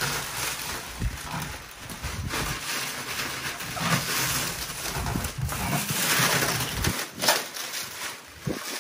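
Plastic wrapping of a roll-packed foam mattress rustling and crinkling as it is pulled off and unwrapped, with uneven handling noise and a sharper, louder crackle about seven seconds in.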